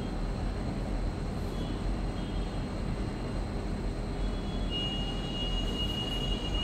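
Steady low rumble and hiss of background noise coming through a video call's audio, with no voices. A faint thin high tone sounds for about two seconds near the end.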